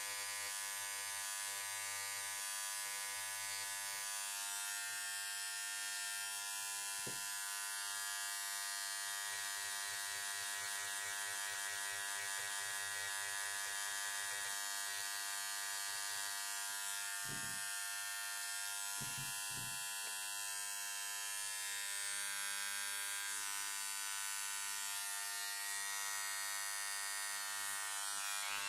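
Hand-held power scribe buzzing steadily as its needle tip chips rock matrix away from a trilobite fossil, with a few soft knocks in the middle.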